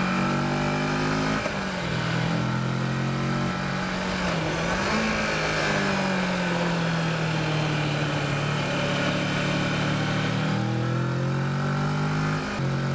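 Kawasaki Versys motorcycle engine running under way, heard from on the bike, its pitch dropping and climbing several times as the rider shifts and works the throttle through the curves.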